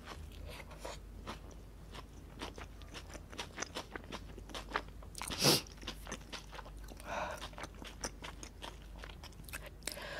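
Close-miked chewing of a McDonald's honey mustard burger with crisp shredded lettuce: a steady run of small crunches and wet mouth clicks, with one louder crunch about five and a half seconds in.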